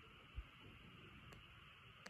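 Near silence with a faint steady hiss, broken by one brief low thump about half a second in and a faint click a little later.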